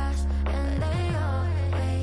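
Background pop/R&B music with a strong, steady bass line.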